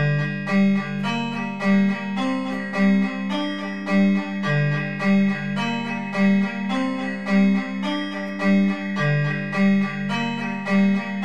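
Dungeon synth music: a repeating melody of plucked-string tones over a sustained low note, with a steady pulse accented about once a second.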